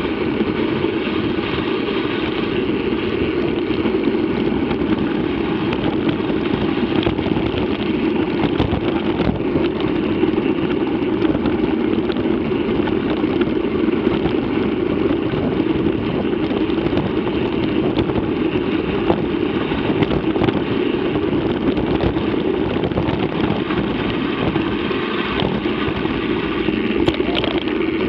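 Steady wind rush on the microphone with the rumble of a mountain bike rolling over a dirt and gravel track, and light clicks here and there.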